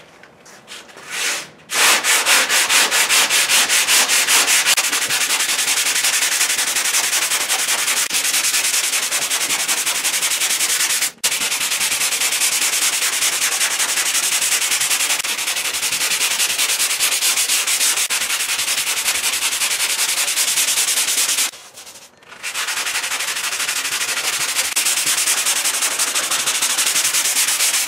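Hand block sanding of body filler on a car fender: 100-grit sandpaper on a Dura Block scraping back and forth. It starts about two seconds in, breaks off for an instant near 11 seconds, stops for about a second near 22 seconds, then carries on.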